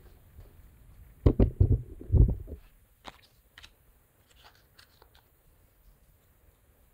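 Handling noise as the phone on its stand is picked up and moved: a cluster of loud dull knocks and bumps between about one and two and a half seconds in, then a few faint clicks.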